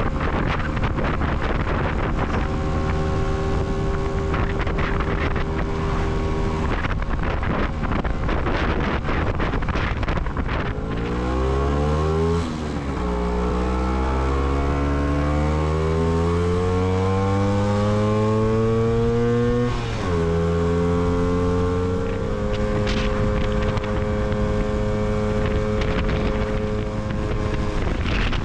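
Lambretta GP125 scooter's single-cylinder two-stroke engine running under way, with wind on the microphone. The engine holds a steady pitch at first, then revs rise and drop sharply about twelve seconds in, climb steadily for several seconds, drop again about twenty seconds in, and settle to a steady pitch.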